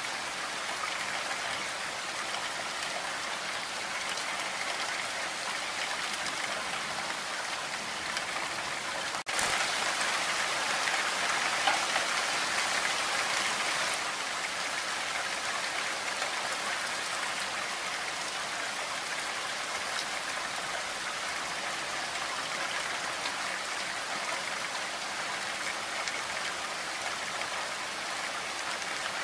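Heavy rain falling in a steady hiss. About nine seconds in it cuts out for an instant, then comes back louder for a few seconds before settling again.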